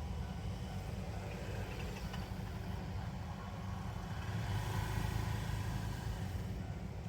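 Road traffic at a level crossing: a steady low engine rumble, with a vehicle passing close by and loudest about five seconds in.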